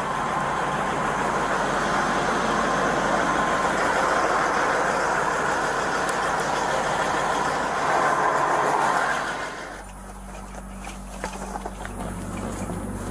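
Semi-truck's diesel engine idling close by, loud and steady. About ten seconds in it cuts to a quieter truck cab with a low steady hum and faint rustling and clicks of bedding being handled.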